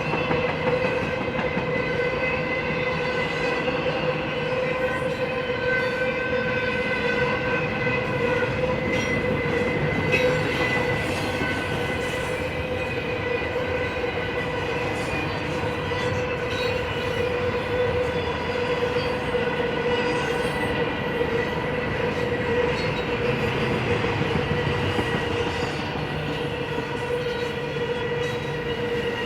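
A long BNSF intermodal freight train's container cars rolling steadily past, the rumble of the wheels on the rails carrying a steady metallic ringing squeal from the wheels.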